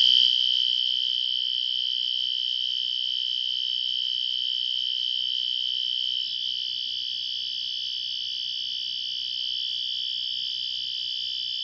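A System Sensor P2GRL fire alarm horn strobe sounding a continuous, steady, high-pitched horn tone with no breaks, measured at about 113 decibels.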